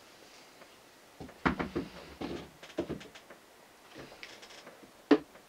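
Handling noise from a wooden cross-stitch scroll frame: a cluster of knocks and clatters about a second in, a light rustle around four seconds, and one sharp knock near the end as the frame is moved and set down.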